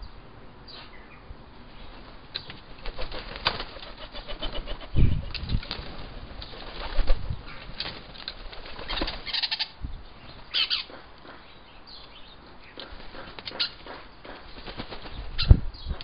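Wood pigeon's wings clattering in irregular flurries as it leaves the roof of a wooden bird table and lands on the feeding tray, with low thuds among them. The loudest flurries come about five, seven and nine seconds in and again just before the end.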